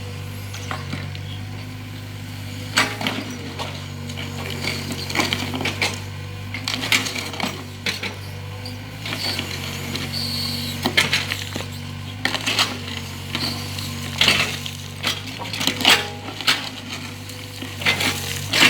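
Mini excavator's engine running with a steady low hum, under repeated metallic clanks and knocks from the machine at work.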